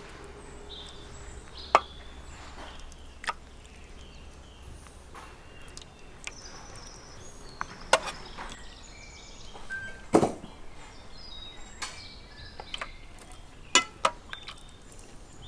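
Metal spoon clinking and knocking against a stainless steel roasting tray of roast lamb: several scattered sharp strikes, two close together near the end. Faint high chirps sound in the background.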